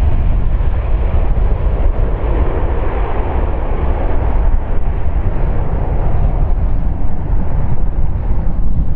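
Airbus A330-200's two Pratt & Whitney PW4170 turbofans at takeoff thrust: a loud, steady jet rumble heavy in the low end through the takeoff roll and liftoff, with wind buffeting the microphone.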